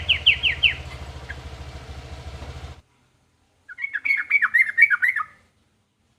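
Yellow-vented bulbul (trucukan) song: a quick series of falling chirps at the start over a steady low hum, which cuts off suddenly before three seconds in. After a short silence comes a second rapid run of chirps lasting about a second and a half.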